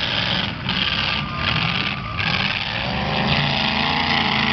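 Demolition derby cars' engines running hard in a loud, steady roar, dipping briefly about three times in the first two seconds.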